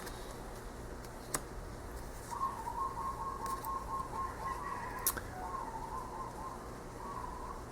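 A bird calling in the background: a long wavering call starting a little over two seconds in, with a shorter call after it. Two sharp clicks, about a second in and five seconds in.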